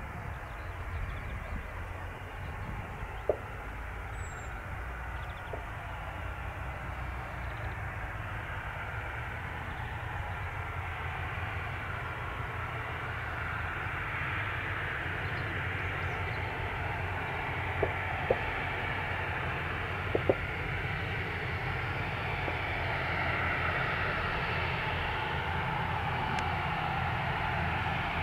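Gulfstream G650ER's twin Rolls-Royce BR725 turbofans running at low power as the business jet taxis after landing: a steady jet hiss and whine over a low rumble, growing gradually louder as it approaches. A few short sharp clicks stand out.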